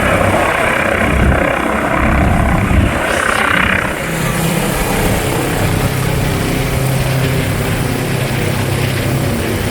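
Emergency helicopter running close by, its rotor and turbine noise filling the first four seconds or so. It then gives way abruptly to a steady low drone.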